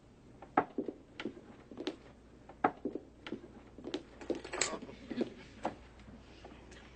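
Footsteps on a hard floor: a series of short knocks, roughly one and a half a second, that thin out near the end.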